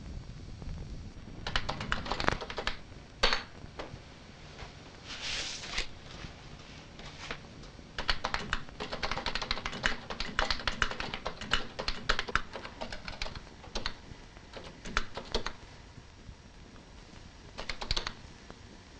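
Typing on an early-1980s computer terminal keyboard: irregular runs of key clicks with pauses between them, the busiest stretch in the middle.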